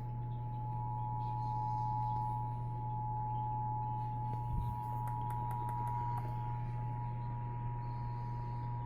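Emergency Alert System attention signal over a radio: a steady two-note electronic tone held without a break, over a low hum. It announces the start of an EAS Required Monthly Test. A faint thump about four and a half seconds in.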